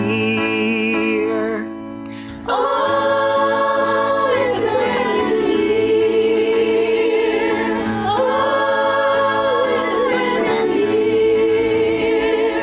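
Young musical-theatre cast singing an ensemble number. A held, wavering note fades and dips briefly about two seconds in. At about two and a half seconds the full group comes in singing together.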